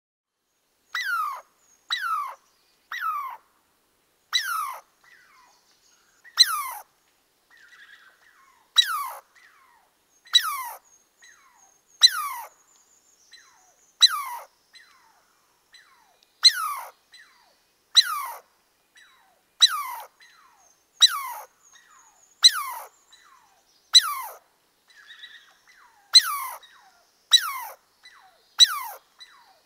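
Repeated short, high chirping calls, each dropping quickly in pitch, about one every one and a half seconds with silence between.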